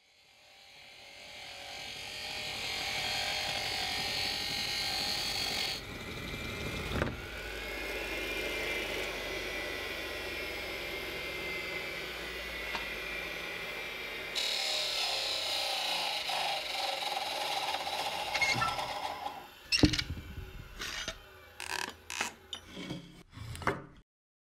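An old Bosch Combi lathe, driven by its drill motor, running steadily while a wooden dowel is turned. The sound fades in at the start and jumps abruptly in level twice. In the last few seconds it gives way to a series of sharp knocks.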